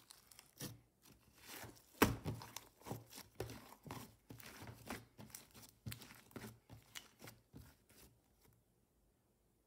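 Clear blue slime with small beads in it being pressed, folded and stretched by hand: irregular sticky crackles and little pops, dying away about a second before the end.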